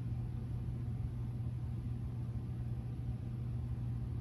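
Steady low hum with a rumble beneath it, unchanging in pitch and level.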